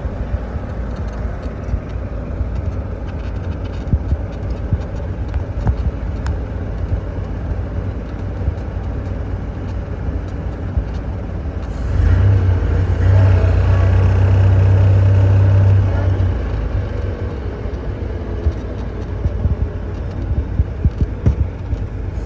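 Motor vehicle running close by: a steady low rumble, then about halfway through a much louder, steady low drone that lasts about four seconds before easing back.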